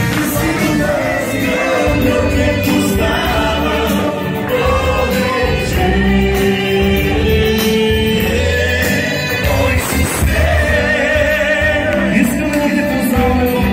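Upbeat worship song, many voices singing together over music with a steady beat.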